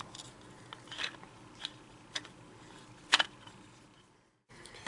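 Faint, scattered clicks and ticks as a flat-blade screwdriver turns the screw that holds a Magpul pistol grip to an AK receiver, with one sharper click about three seconds in.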